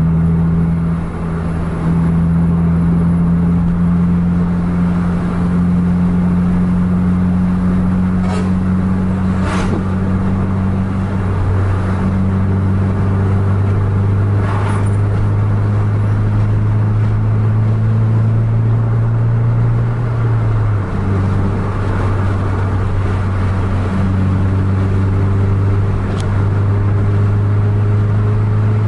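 Engine and road noise of a fast-moving car, heard from inside its cabin: a steady low drone whose pitch creeps up and drops back a few times. Oncoming traffic rushes past briefly a few times, once about halfway through.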